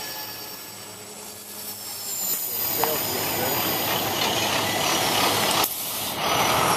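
Electric Align T-Rex 450 Pro RC helicopter in flight: the rotor blades swish and a thin, high motor whine shifts in pitch, growing louder about two to three seconds in as it manoeuvres closer.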